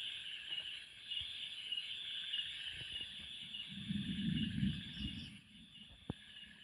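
Insects chirping steadily in roadside vegetation, a constant high pulsing trill. About four seconds in there is a low rumble for a second or so, and near the end a single sharp click.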